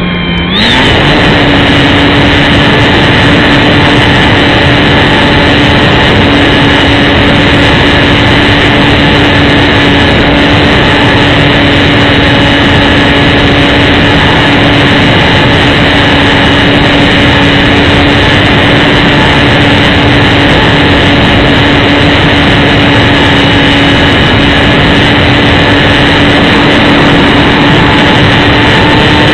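Electric motor and propeller of an XK DHC-2 A600 RC plane, heard from a camera on the plane in flight: a loud, steady whine over rushing air noise. The pitch dips briefly right at the start, then holds steady.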